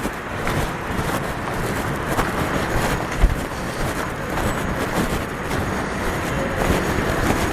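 City street traffic: motor vehicles running and passing in a steady rumble, with a brief low thump a little over three seconds in.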